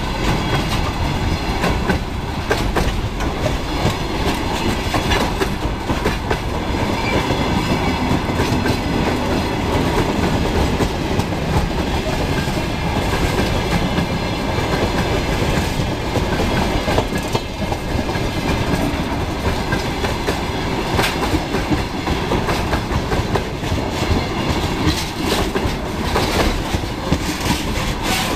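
Freight wagons of a track-maintenance train rolling past close by: a steady rumble of steel wheels on rail with irregular clicks and knocks as the wheelsets cross the rail joints.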